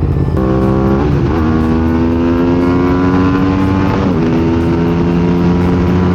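Motorcycle engine accelerating through the gears on a freeway: its pitch climbs steadily, drops sharply at upshifts about a second in and about four seconds in, then holds steady at cruising speed, over a steady rush of wind.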